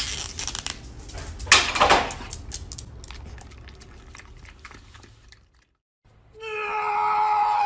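Crinkling and crackling of a foil-lidded food cup and plastic treat packaging being peeled and torn open, loudest about a second and a half in. After a short pause, a long steady high-pitched cry starts about six seconds in.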